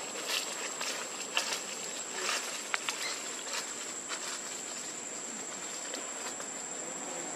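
Dry leaf litter crackling and rustling in short scattered snaps as macaques move over the forest floor, mostly in the first three seconds. Underneath, a steady high-pitched insect drone.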